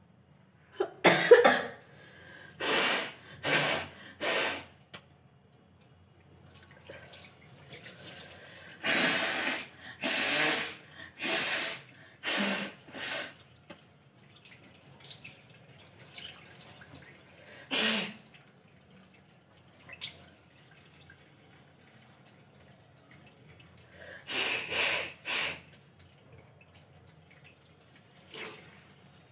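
A woman with a real head cold sneezing again and again in short, loud bursts, the first and loudest about a second in, with sharp breaths and sniffles between.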